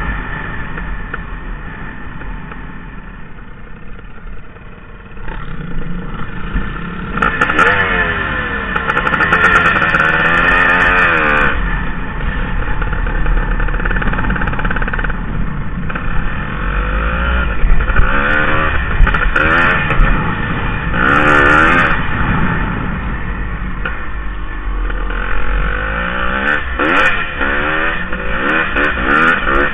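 Dirt bike engine heard close up from the bike itself while riding a trail, revving up and falling back again and again. It runs quieter for the first several seconds, then revs hard in repeated surges from about seven seconds in.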